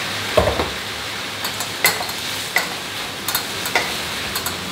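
Sliced zucchini stir-frying in a pan: a steady sizzle, with a cooking utensil clicking against the pan as it is stirred, roughly every three-quarters of a second.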